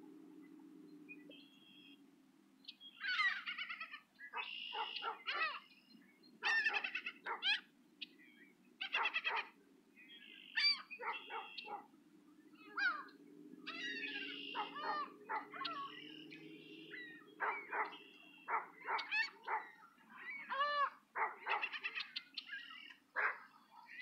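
Several gulls calling over and over: short, sharp, high calls coming in quick runs from about three seconds in, some overlapping, over a low steady rumble.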